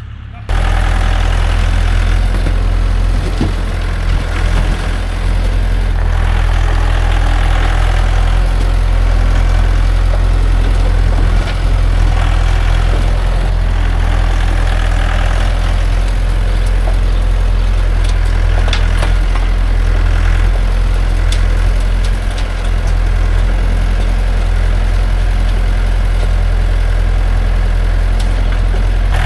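Tractor engine running steadily, with a few faint knocks over it.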